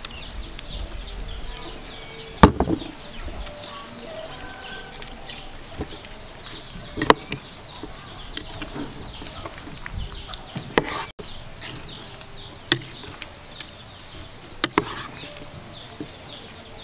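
A metal spoon and chopsticks tossing a salad in a plastic bowl, with a few sharp clicks of the utensils against the bowl. Behind it, birds keep up short, high peeps that fall in pitch, several a second.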